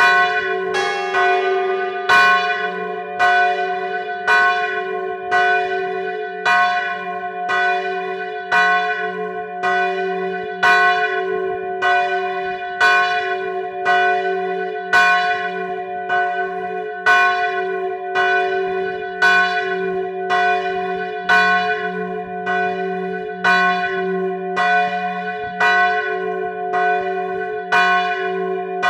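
Church bells in the tower tolling a death knell (glas): a large swinging bell hums steadily underneath while bell strokes fall about once a second, every other one louder.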